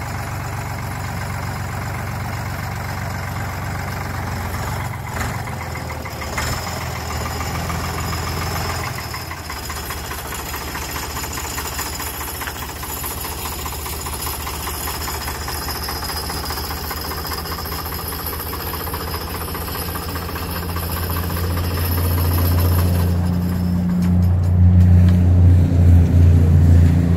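Deutz-Allis four-wheel-drive loader tractor's diesel engine running as the tractor drives slowly over gravel, growing louder near the end as it comes up close.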